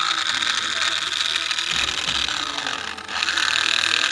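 Rear drive motor of a toy radio-controlled car, a small electric motor, running with a steady high buzzing whine. It cuts out briefly about three seconds in and starts again.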